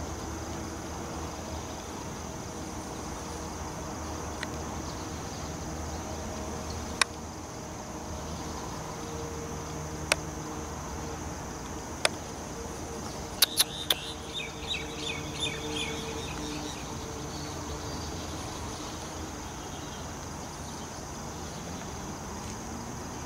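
Outdoor night ambience: a steady, high chirring of insects over a low background hum, with a few sharp clicks in the middle and a brief run of chirps a little past halfway.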